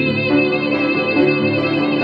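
A young woman singing solo, holding one long note with a slight vibrato over instrumental accompaniment.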